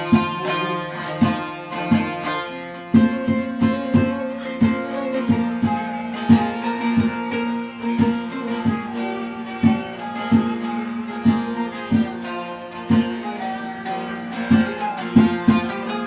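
Bağlama (Turkish long-necked saz) played solo, an instrumental passage between sung verses of a Turkish folk song. It has plucked and strummed strokes in a steady rhythm under the melody.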